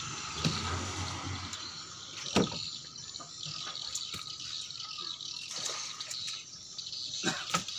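Water splashing and dripping in and around a fishing boat's wet fish hold, with scattered sharp knocks, the loudest about two and a half seconds in.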